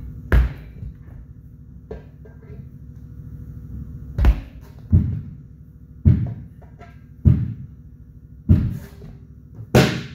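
Manual truck-tire changing on an aluminum wheel: seven heavy thuds with a clanking, ringing edge as a tire iron levers and knocks the bead against the rim. One comes about half a second in, then after a pause they come roughly once a second.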